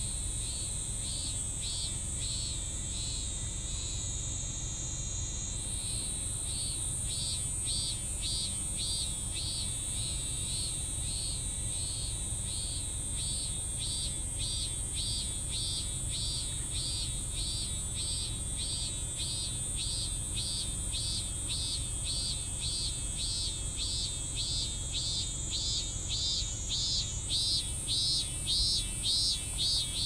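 Cicada calling in a pulsed, repeating phrase that speeds up to about two notes a second and grows louder toward the end, over a steady high-pitched drone of insects.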